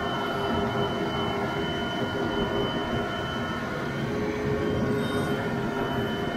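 Tractor engine running steadily under load as it drives over a corn pile packing the pit, heard from the cab, with a steady whine over the engine rumble.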